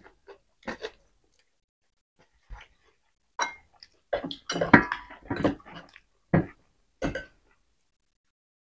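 Close-up chewing and lip-smacking of people eating rice and roasted pork by hand, in short separate bursts, busiest in the middle.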